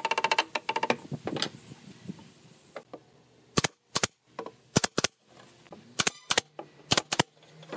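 Pneumatic brad nailer firing brads into pine boards: about nine sharp cracks in the second half, some in quick pairs. Before that, a quick run of knocks as the divider is worked into place.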